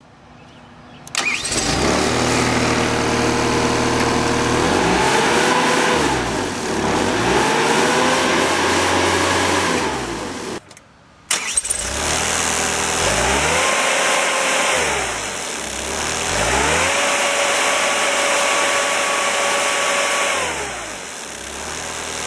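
Diesel engine of a Terex PT60 compact track loader coming to life about a second in, then running and being revved up and let back down to idle several times, with a brief break near the middle.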